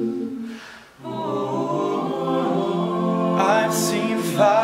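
All-male a cappella group singing: a held chord fades out into a brief break about a second in, then the voices come back in together on a new sustained chord. A solo voice rises over the chord near the end.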